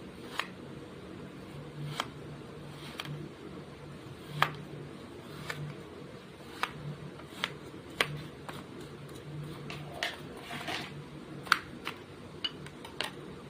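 Blue kinetic sand being crushed: a series of irregular sharp crackles and clicks, roughly one a second and coming faster near the end, over a faint low hum.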